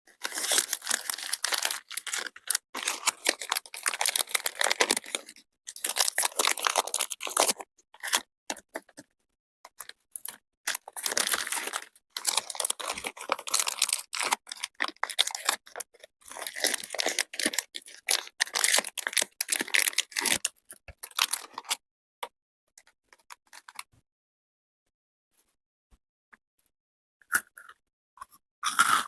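Close-miked crunching and chewing of crunchy chocolate, in dense spells of crackling bites and chews with short pauses between them, dying away to a few seconds of near silence near the end.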